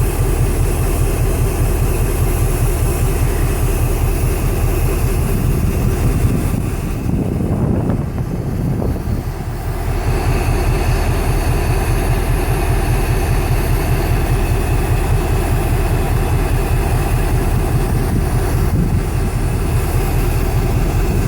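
EMD diesel-electric locomotives idling, a steady low engine drone with a short dip in level about seven seconds in.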